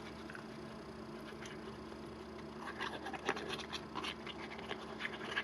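Faint rustling and light irregular taps of paper being handled on a work table, becoming more frequent about halfway through, over a low steady electrical hum.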